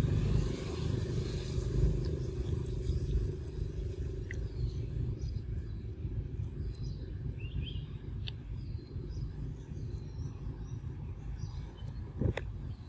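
Low rumbling outdoor background noise, with a few faint short chirps from the middle on and a sharp click near the end.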